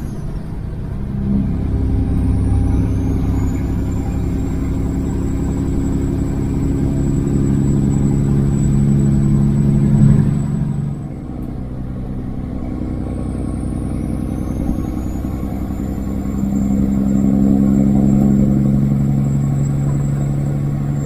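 Kenworth W900 semi truck's diesel engine pulling under load, its note climbing, dropping sharply as a gear is changed about ten seconds in, then climbing again. A thin high whistle rises along with the engine each time it pulls.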